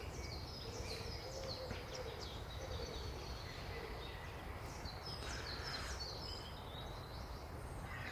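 Woodland birds singing: quick runs of short, high, falling chirps, thickest in the first few seconds and again around five seconds in, over a low steady rumble.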